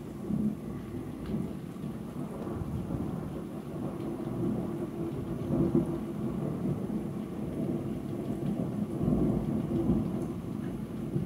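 Long, rolling thunder rumbling continuously, swelling and fading several times.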